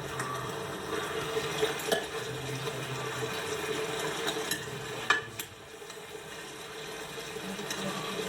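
Food cooking in a pan and being stirred, with a utensil clinking against the pan now and then; the sharpest knock comes about five seconds in.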